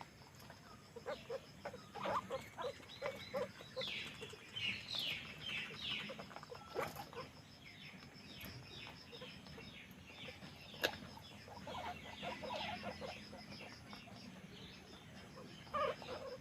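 A group of guinea pigs squeaking: runs of short, quick high calls, some sliding down in pitch, with a sharp click about eleven seconds in.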